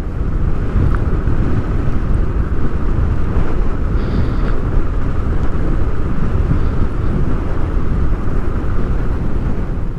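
Motorcycle being ridden at a steady speed, its engine running evenly under a constant rush of wind over the rider's helmet-mounted microphone.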